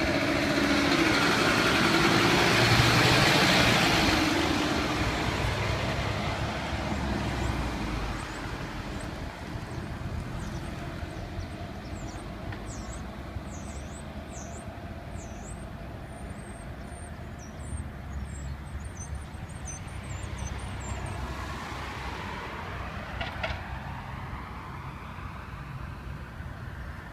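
Fire engine passing close by, its engine and tyre noise loudest in the first few seconds, then fading as it drives away, leaving a steady hum of street traffic.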